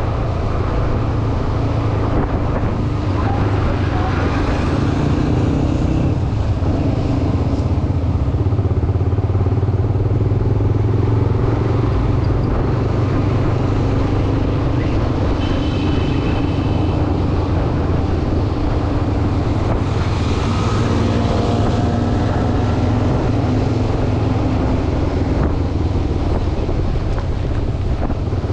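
Motorcycle engine running under way, its pitch rising and falling with the throttle, over road and traffic noise. A brief high tone sounds about halfway through.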